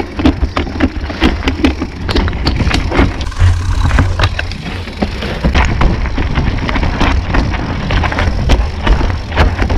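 Mountain bike ridden over a rough dirt trail: constant wind rumble on the camera microphone, with irregular rattling and clattering clicks from the bike jolting over stones and roots.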